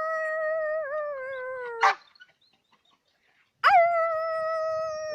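Dog howling in two long, steady high notes. The first sags slightly in pitch and ends with a short sharp yelp about two seconds in; after a pause of a second and a half, a second howl starts abruptly.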